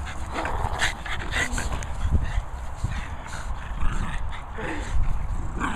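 A Jug and a Chug, two small pug-cross dogs, playing tug-of-war over a rubber ring toy, making dog noises as they tussle.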